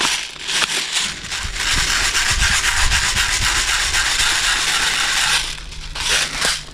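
A steady scraping rub for about four seconds, with shorter rustles just before and near the end.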